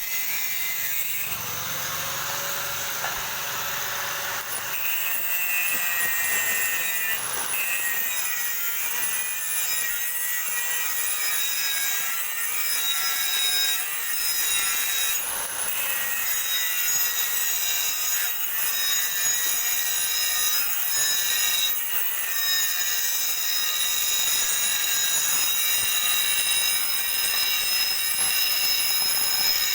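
Electric arc welding: the arc's continuous crackling hiss, steady throughout.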